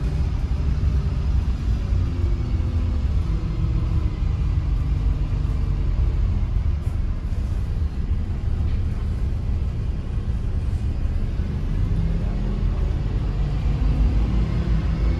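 Steady low rumble of a bus engine and road noise, heard from on board the moving vehicle.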